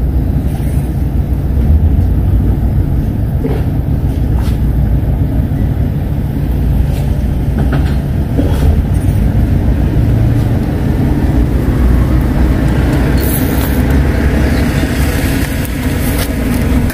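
A loud, steady low rumble with a few faint clicks along the way; a hiss builds over the last few seconds.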